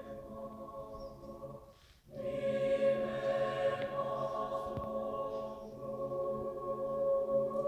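Mixed-voice choir singing sustained chords, with a brief break about two seconds in before the next phrase is held.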